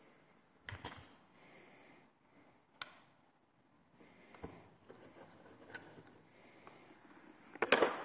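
Scattered small metallic clicks and clinks of a lock cylinder and its tools being handled, with a louder cluster of clicks near the end.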